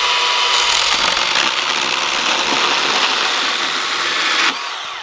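Milwaukee M12 Fuel Hatchet 6-inch cordless pruning saw running its chain through a small branch: a steady motor whine over the rasp of the chain in the wood. It is released and winds down about four and a half seconds in.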